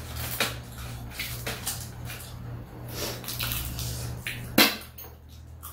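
Metal spoons clinking and scraping against a stainless steel bowl of stir-fried mushrooms, with wet chewing sounds of eating. There is a sharp, loud clink a little before the end, over a low steady hum that stops at the same moment.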